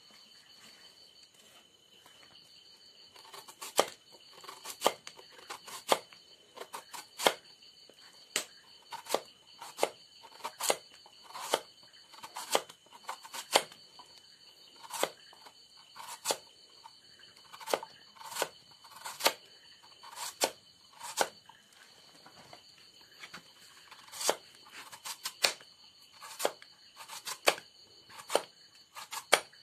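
Knife slicing a fresh bamboo shoot by hand: a crisp cut about once a second as each thin slice comes off, starting a few seconds in.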